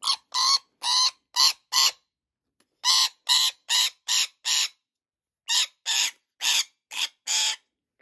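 Rainbow lorikeet screeching harshly while it is held and syringe-fed: three runs of about five short, quick screeches each, with brief pauses between the runs.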